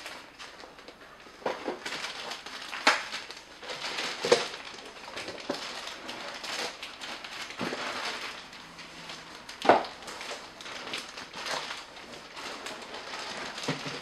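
Packaging rustling and crinkling as 3D printer parts are pulled out of their box, with irregular clicks and a few sharp knocks, the loudest near the ten-second mark.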